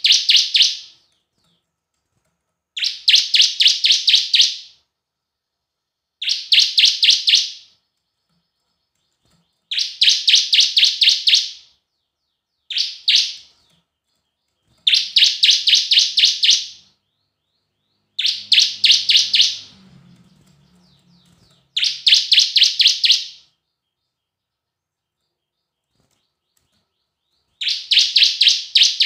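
Bar-winged prinia (ciblek) singing: short bursts of rapid, repeated sharp chirps, each burst lasting one to two seconds, coming again every two or three seconds.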